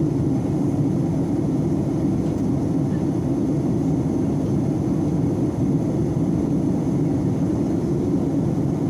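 Jet airliner cabin noise in flight: a steady, low roar of the engines and rushing air, heard from a window seat inside the passenger cabin.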